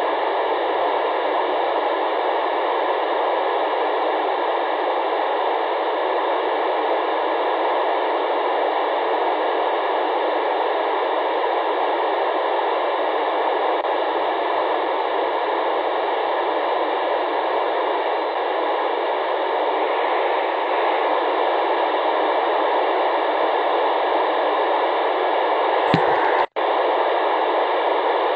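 FM radio receiver hissing steadily with its squelch open, tuned to the SO-50 amateur satellite's downlink, with no voice coming through. A short click and a split-second cut-out near the end.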